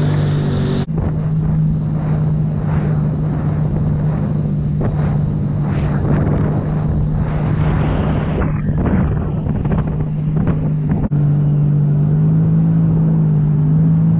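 Jet ski engine running steadily at speed, heard from on board over wind and rushing water; the engine note rises slightly near the end.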